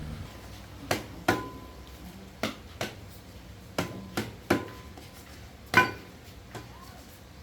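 About nine sharp, irregularly spaced knocks of a hammer or metal tool striking metal parts of a mini corn thresher during repair. Several knocks ring briefly, and the loudest comes near the end.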